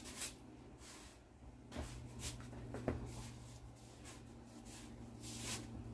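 Clothes rustling as they are pulled out of a laundry basket and sorted by hand, a series of short rustles with a couple of soft knocks, over a steady low hum.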